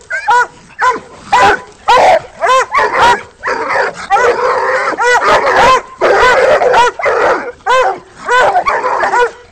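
Several Walker coonhounds giving their treeing bark at a raccoon bayed in a wire cage: a fast run of loud, overlapping barks, about two a second, with rougher noisy stretches between them in the middle.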